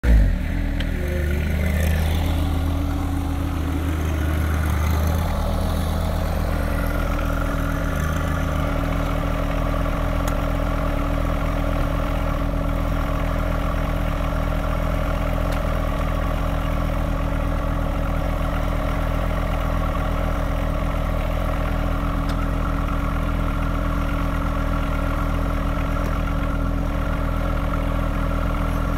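John Deere subcompact tractor's diesel engine running steadily. It is a little louder and less even for the first few seconds, then settles.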